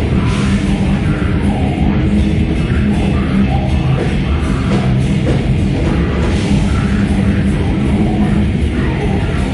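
Heavy metal band playing live, loud and dense with no breaks.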